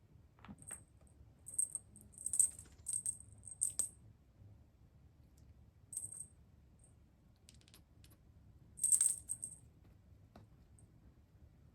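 A small bell jingling in short, bright bursts: several in quick succession over the first four seconds, another about six seconds in, and a louder shake near nine seconds.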